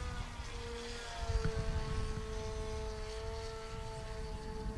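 Electric motor and propeller of an E-flite Edge 540 QQ RC aerobatic airplane in flight, whining at a nearly steady pitch. A low rumble runs underneath.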